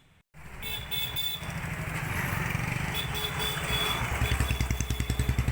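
Motorcycle engine running under way, its low exhaust beat growing louder near the end, over a steady rushing noise.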